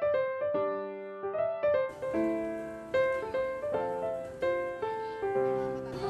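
Background music: a gentle piano melody, its notes struck one after another and left to fade.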